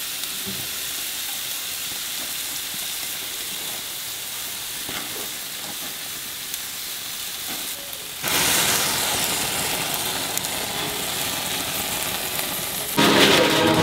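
Steaks sizzling on a hot grill as they are basted with melted butter, a steady hiss. About eight seconds in the sizzle jumps suddenly louder and fuller, and music comes in near the end.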